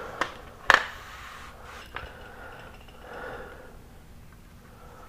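Handling noise from a black solar-oven tube being turned and gripped in the hands: rubbing and a few sharp clicks, the loudest just under a second in.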